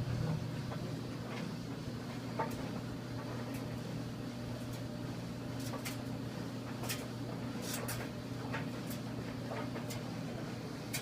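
1987 GE DDE7500GAL clothes dryer running with a steady low hum and light, scattered ticks, with no loud clanking; it runs this quietly on a new idler pulley, belt and drum slides.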